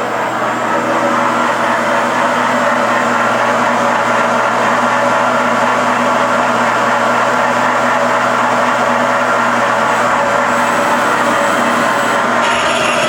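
Fryer ET-18 CNC lathe running: a steady mechanical hum with several held tones and a faint high whine, unbroken throughout.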